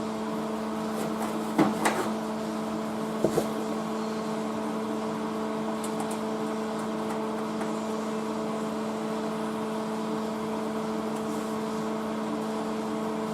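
Steady electrical hum from workshop equipment, with a few sharp knocks, two close together about a second and a half in and two more near three seconds in.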